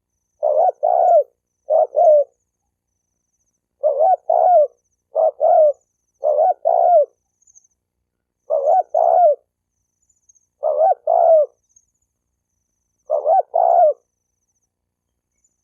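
Spotted dove cooing: a short two-note coo repeated eight times at uneven intervals, stopping near the end.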